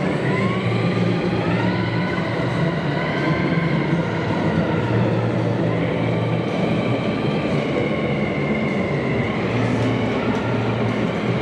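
Electric motor and propeller of a large lightweight RC Fokker Dr.1 triplane model running in flight: a whine that rises in pitch in the first couple of seconds, rises again about six seconds in, and falls near the end, over a steady low hum.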